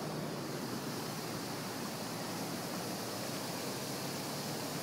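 Steady outdoor rushing noise with a faint low hum underneath; no distinct events.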